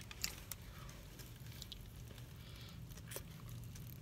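Quiet eating sounds: a few faint, soft clicks and squishes of chewing and handling a paper food wrapper, over a steady low hum inside a car.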